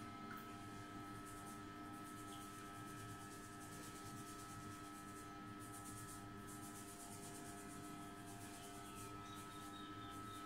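Fingertips rubbing and massaging wet hair against the scalp, working in a hair tonic: a soft, irregular rustle that comes and goes over a steady hum.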